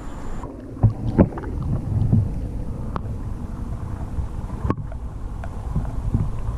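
Briefly wind on the microphone, then the muffled low rumble of a camera submerged in lake water, broken by scattered sharp clicks and knocks.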